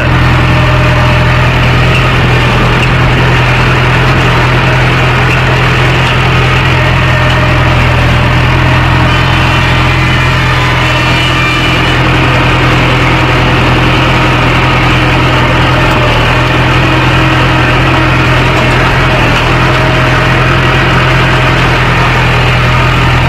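Mahindra 415 DI tractor's four-cylinder diesel engine running steadily at an even speed, heard close up from the driver's seat.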